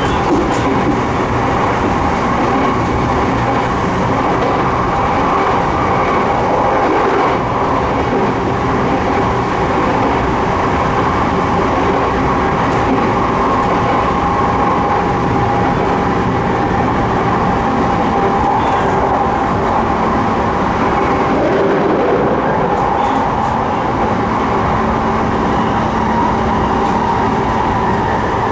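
Sotetsu 12000 series electric train running at speed, heard from inside the car. The wheels rumble on the rails and a steady hum of tones sits over the rumble, with a lower tone joining in the later part.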